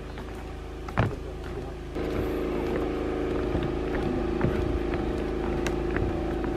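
A single thump about a second in, then a steady motor hum that starts about two seconds in and holds an even pitch.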